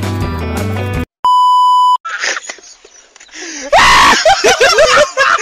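Background music cuts off about a second in, followed by a single steady beep lasting under a second. Then comes a man's loud groaning and screaming, a run of cries gliding up and down in pitch that fills the second half.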